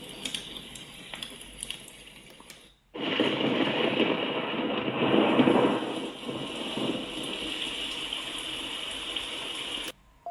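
Sunrise alarm clock playing its built-in nature sounds: a water sound that stops abruptly about three seconds in, then a louder rushing-water track that cuts off suddenly near the end, as the clock steps from one sound to the next.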